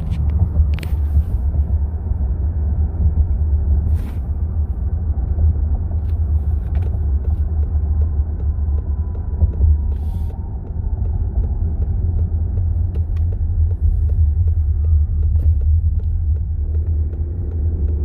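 Steady low road-and-drivetrain rumble inside the cabin of a 2020 Lincoln Aviator cruising at about 44 mph, with no tick from the front left. The driver's side motor mount vent line that was bouncing off the CV axle is now zip-tied clear of it.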